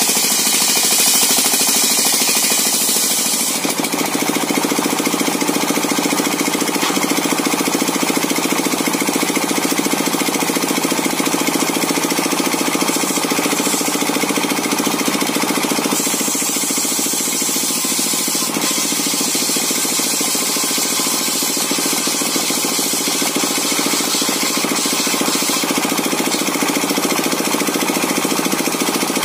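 Circular saw machine running steadily while sawing coconut-palm timber, a dense mechanical roar. A brighter hiss rides on top for the first few seconds and again from about halfway through until near the end.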